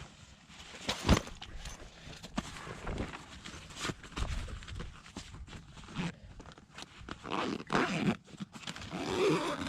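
Gear being handled in a camera backpack: rustling fabric with irregular clicks and knocks, the sharpest about a second in.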